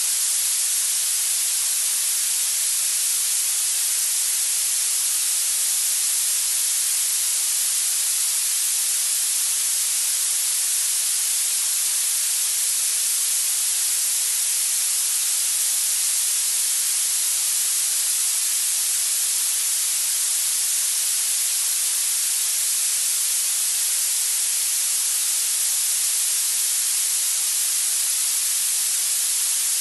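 Steady, unchanging hiss of synthesized noise for tinnitus masking and habituation therapy. It is weighted toward the high treble with little low end, and has no tone, rhythm or pauses.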